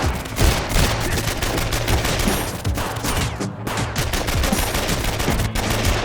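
Dense, rapid gunfire from film-style gunshot sound effects: many shots in quick succession, layered over a steady low tone.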